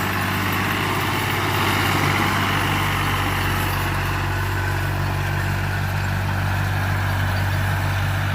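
Fiat tractor's diesel engine running steadily as it works the field, a constant low drone.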